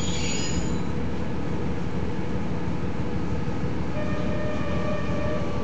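Diesel engine of a KiHa 40 series railcar running in a steady rumble, heard from inside the car. There is a brief high squeal right at the start, and a steady whine with overtones comes in about four seconds in.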